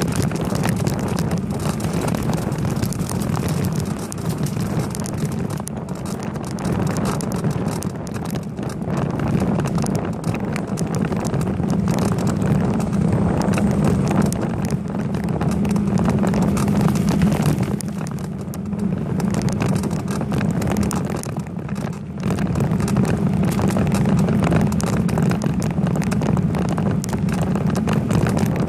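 Riding noise picked up by a bicycle-mounted camera: a steady rush of wind and tyre noise, with a dense clatter of small knocks from the bike. It eases briefly a couple of times.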